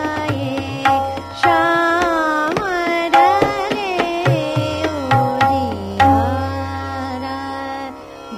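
Hindustani classical singing in Raag Hamsadhwani, the voice gliding through long melodic runs over steady tabla strokes with deep bass-drum notes.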